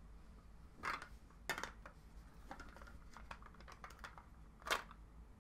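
Hard plastic clicks and taps from a toy core drill being handled and fitted onto its clear plastic display stand: sharp clicks about a second in and again half a second later, lighter ticks after that, and the loudest click near the end.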